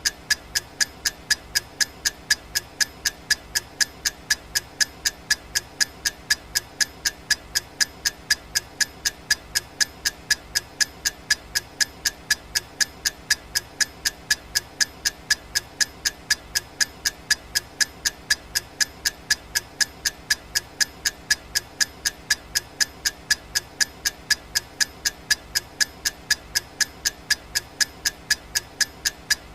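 Clock ticking sound effect of a countdown timer: sharp, evenly spaced ticks, several a second, keeping a steady beat.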